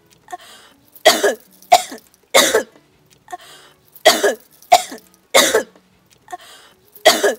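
A woman coughing hard in fits: three coughs, a gasping breath, three more, another breath, and one more cough near the end.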